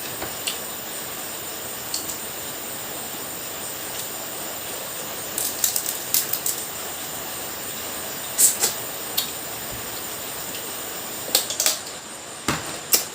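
Crab being eaten: scattered sharp cracks and crunches of crab shell and chewing, in small clusters, over a steady hiss.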